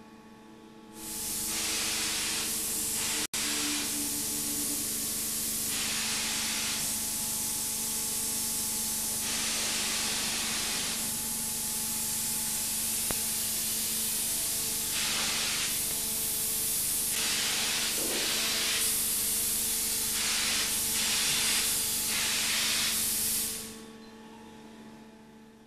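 Paint spray gun on the arm of a Spine spray-painting robot hissing, growing stronger and weaker in turn as it sprays. It starts about a second in and falls away near the end, over a steady low hum.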